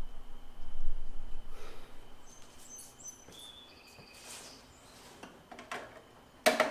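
Handling noise with a low rumble in the first couple of seconds, then a few short high chirps, then scattered sharp clicks ending in a louder clack near the end.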